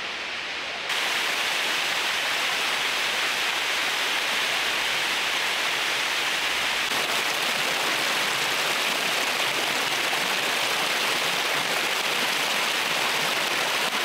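Water of a spring-fed waterfall cascading over a rock ledge, a steady close rush of falling and churning water that gets louder about a second in.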